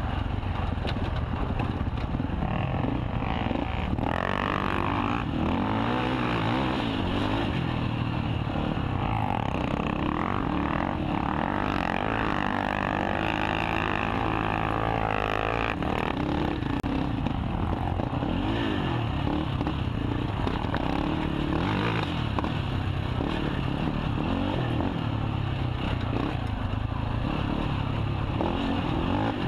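KTM 450 XC quad's single-cylinder four-stroke engine running hard without a break, its pitch rising and falling with the throttle at race pace.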